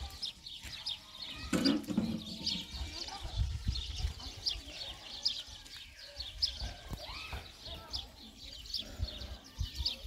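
Small birds chirping over and over in quick, short notes, with a brief voice-like call about two seconds in and a low rumble underneath.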